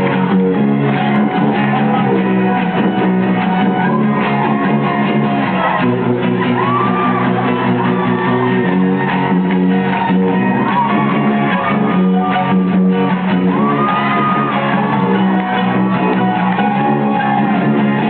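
Live rock band playing loudly, guitars strummed under sung and shouted vocals.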